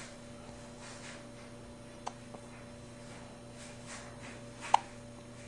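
Two short hiccups, a small one about two seconds in and a louder, sharper one near the end, over a steady low electrical hum.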